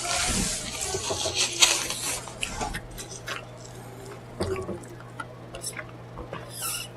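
Close-miked mukbang eating: wet chewing and smacking with scattered sharp clicks. The busiest, loudest stretch is in the first couple of seconds.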